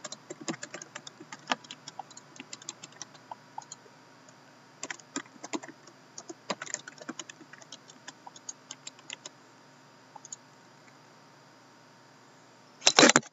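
Typing on a computer keyboard: irregular runs of short keystroke clicks with pauses between them. Near the end a brief loud bump and rustle as the camera is handled.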